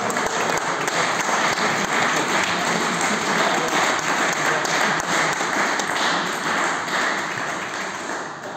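Spectators applauding with many rapid hand claps at the end of a table tennis rally, dying away near the end.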